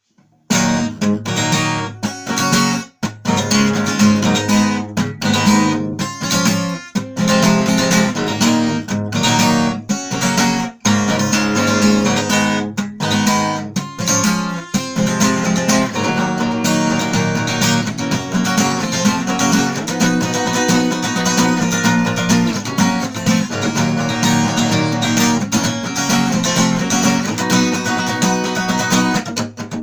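Acoustic guitar strummed in the quick galloping strum pattern (бой галоп), chords played rhythmically, with a few short breaks in the first half and then continuous.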